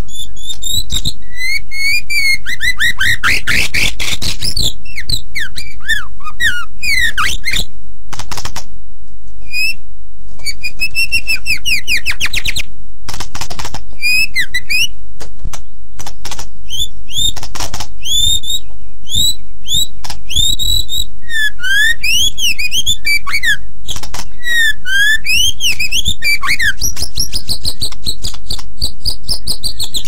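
White-rumped shama (murai batu) singing continuously: loud, varied whistled phrases of rising and falling notes and rapid slurred trills, mixed with sharp clicks, over a steady low hum.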